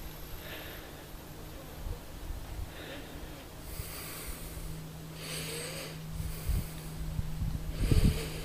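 Wind buffeting the microphone in an irregular low rumble, with a person's breathing and sniffing close to it, a breath every second or two; the gusts grow stronger near the end.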